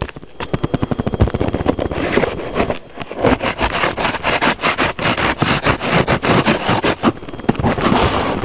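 Large cardboard box being torn open: rapid, irregular crackling and scraping of cardboard and packing, with a short pause about three seconds in.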